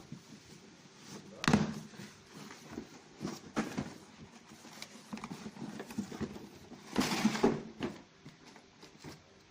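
Handling noises of a toy's packaging being unboxed: irregular taps and knocks, with two louder rustling scrapes, one about a second and a half in and another lasting about a second from around seven seconds.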